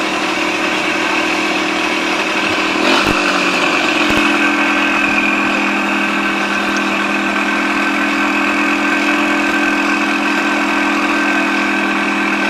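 A vehicle engine idling steadily, its pitch dropping slightly about three to four seconds in.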